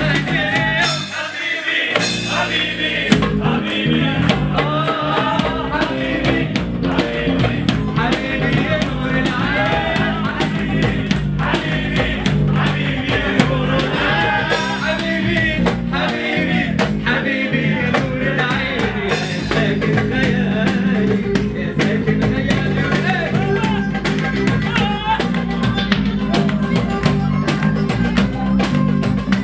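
Small live band playing a song: violin melody over strummed acoustic guitar, with percussion and cymbal keeping a steady beat.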